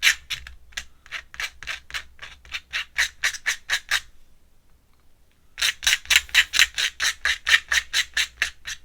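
Pen scratching on paper in quick back-and-forth hatching strokes, about four to five a second, in two runs with a pause of about a second and a half between them.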